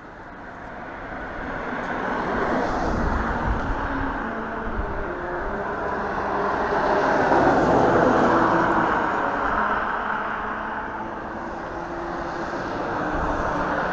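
Outdoor road traffic rumble that swells to a peak about halfway through and then eases off, with wind buffeting the microphone.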